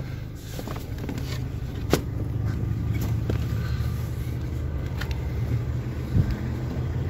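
A car door opened from inside and someone climbing out and walking: a sharp click about two seconds in and a few lighter clicks and knocks, over a steady low rumble.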